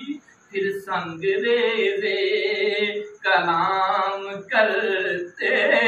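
A man singing an Urdu naat (devotional poem) unaccompanied, in long, drawn-out phrases with short breaks for breath between them.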